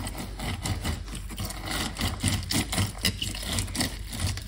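Halved orange being twisted back and forth on a plastic hand citrus reamer, giving a run of short, rhythmic scraping and squelching strokes, a few a second, as the juice is pressed out.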